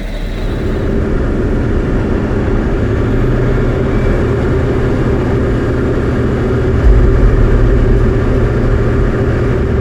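Diamond DA40's turbo-diesel engine and propeller running steadily at high power during departure. The sound builds in the first second and gets a little louder about seven seconds in.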